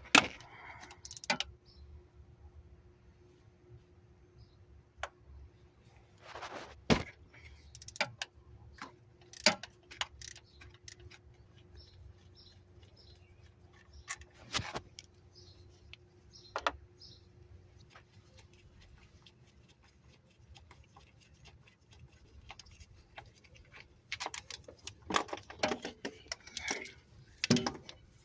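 Scattered metal clinks and knocks of hand tools and bolts while a car's starter motor is unbolted and pulled out, busiest near the end.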